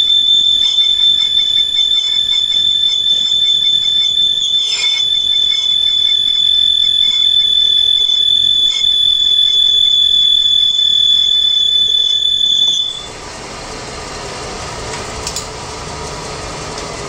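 Lathe cutting tool squealing as it faces a spinning steel flour-mill bearing cup: a steady high-pitched whine that cuts off suddenly about thirteen seconds in, leaving the quieter running noise of the lathe.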